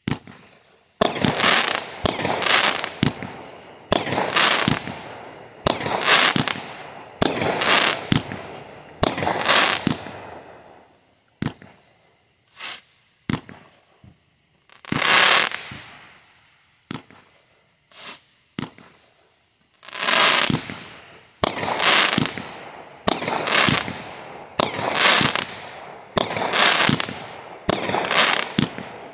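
350-gram consumer firework cake (Brothers Pyrotechnics Light Brigade) firing shot after shot, each a sharp bang that trails off over about a second. Roughly one shot a second, with a sparser stretch of single, smaller pops about halfway through before the steady firing picks up again.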